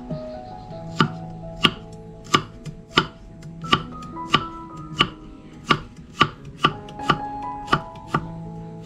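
Kitchen knife slicing garlic cloves on a thick wooden chopping board: a steady series of sharp knocks, about three every two seconds.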